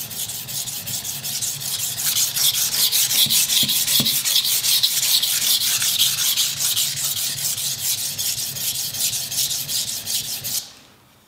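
Soft-steel IKEA kitchen knife blade stroked rapidly back and forth on a wet 400-grit Naniwa Chosera water stone, a steady gritty rasping of about five strokes a second that stops shortly before the end. These are the grinding passes that raise a burr along the edge.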